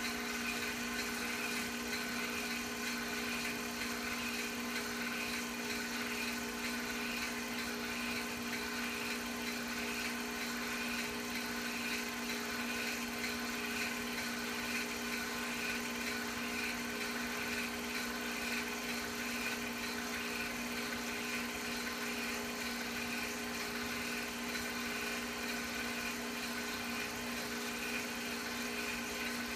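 Steady whirring of a film projector's motor and mechanism running a silent home movie, an even mechanical hum that does not change.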